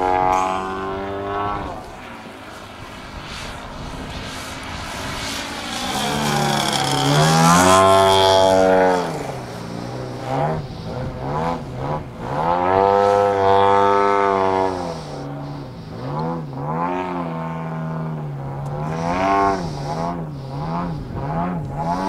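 Gasoline engine of a radio-controlled aerobatic airplane in flight, its pitch rising and falling as it manoeuvres. It is loudest in two long swells, about a third of the way in and again around the middle. Near the end the pitch wavers up and down rapidly, about once a second.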